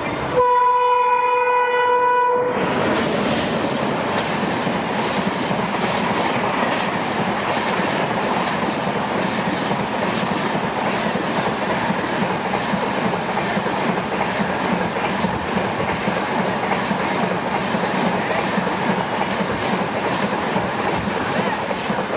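Diesel or electric locomotive horn sounding a steady blast for about two seconds, then a train of LHB coaches rushing past close by, a loud, steady rumble and clatter of wheels on rail that runs on for the rest.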